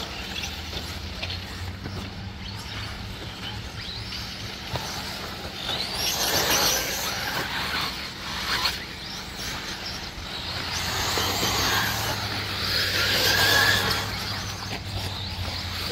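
1/8-scale electric RC buggies running on a dirt track, their motors whining higher and lower as the cars pass, loudest about six seconds in and again toward the end, over a steady low hum.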